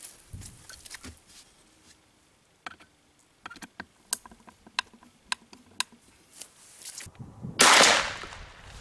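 A series of sharp clicks, roughly two a second, as a wooden board is screwed onto the target stand with a hand screwdriver. Near the end comes one loud shotgun shot from a Beretta Bellmonte, fired to test how deep the pellets go into the board.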